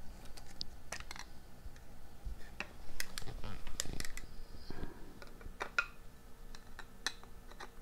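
Irregular light clicks and taps of a clear plastic card case being handled and closed around a trading card.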